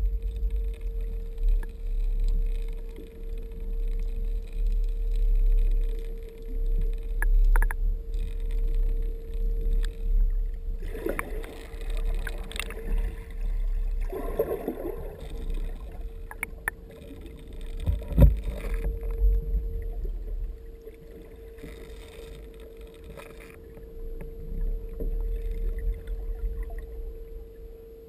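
Muffled underwater sound through a GoPro camera's waterproof housing: a constant low rumble of water moving over the camera, a steady hum, and scattered clicks and knocks. The sharpest knock comes about two-thirds of the way through.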